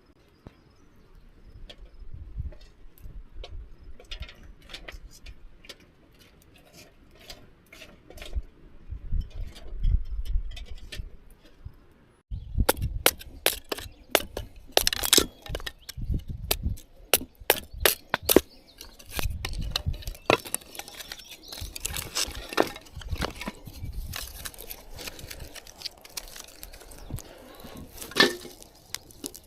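Sharp, irregular cracks and snaps of wood for a campfire, much denser from about halfway in. The first half has low thumps and rustling with only a few cracks.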